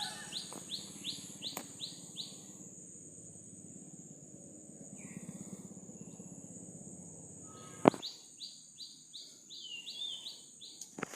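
A bird calling in a rapid series of short, falling notes, about four a second, which stops about two seconds in and starts again near the end, over a steady high-pitched insect drone. A single sharp click sounds about eight seconds in.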